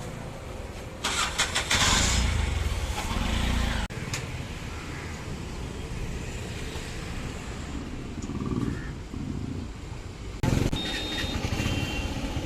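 A motor vehicle's engine running close by, loudest from about one to four seconds in, over a steady background of street noise, with another loud burst near the end.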